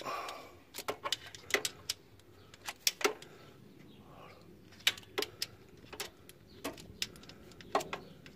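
Ratchet wrench clicking in short, uneven runs as it turns a cover bolt on the engine.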